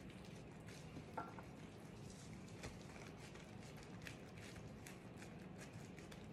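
Faint rustle and soft squish of disposable plastic gloves rolling and pressing soft dough on a granite counter, with a brief squeak about a second in, over a low steady hum.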